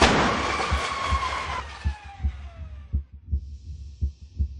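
A car hitting a crash-test barrier wall in a 35 mph frontal crash test: a sharp crash at the start, then crunching metal and ringing tones that fall in pitch and die away over about two seconds. Low heartbeat-like thumps, about two to three a second, run underneath, with a faint hiss near the end.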